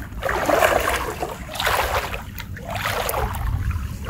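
Water splashing and sloshing in irregular bursts, over a steady low rumble.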